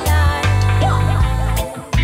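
Reggae song with a heavy bass line.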